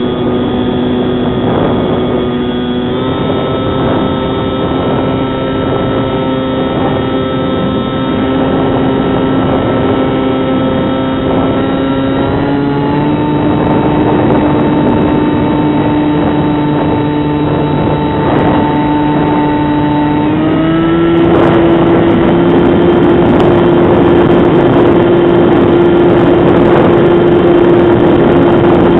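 Bixler 2 model plane's electric motor and pusher propeller whining steadily over a rush of air. The pitch steps up three times as the throttle is raised, and it gets louder at the last step, about two-thirds of the way through.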